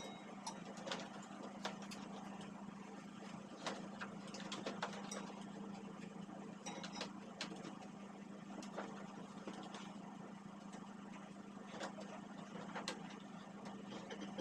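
Scattered light clicks and taps, irregular and a few seconds apart, over a steady low hum.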